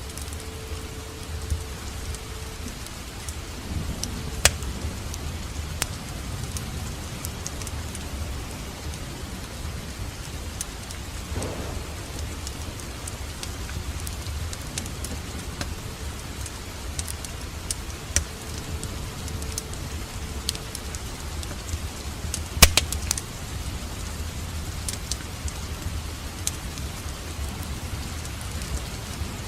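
Wood fire burning in a fireplace: a steady low rush of flames with scattered crackles and pops, one sharp loud pop about three-quarters of the way through.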